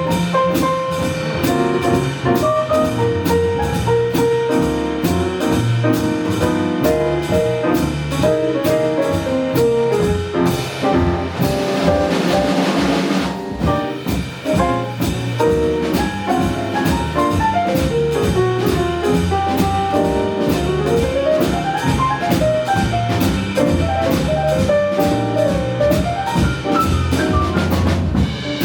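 Live small jazz band playing, the drum kit keeping a steady beat under the bass and piano. A few seconds of bright, hissy cymbal wash near the middle.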